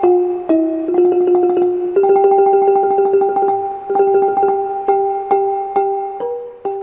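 Instrumental music: a slow melody whose notes are sounded as many quick repeated strikes, slowly getting quieter.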